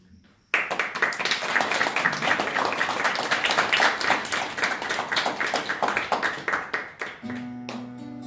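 A small audience applauding, breaking out suddenly about half a second in and thinning out after about six seconds. An acoustic guitar starts playing again near the end.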